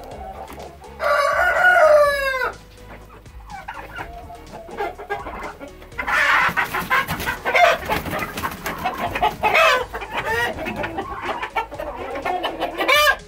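A rooster crows once, about a second in, its long call falling in pitch at the end. From about six seconds on, chickens in a flurry of squawking and clucking, with wings flapping as the flock scatters.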